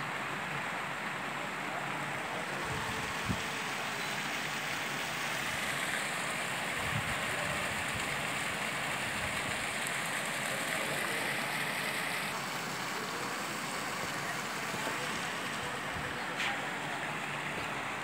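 Fountain water falling and splashing: a steady rushing hiss from a water curtain running down a glass screen and from bubbler jets, with a few faint knocks. The hiss shifts slightly in tone twice.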